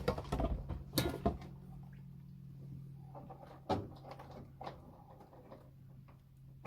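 Scattered knocks and clunks of hands-on work, a cluster of them at the start and a sharper one a little past halfway, over a steady low hum.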